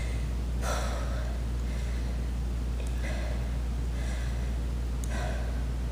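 A woman breathing hard after intense exercise: two heavy exhales, about half a second in and near the end, over a steady low hum.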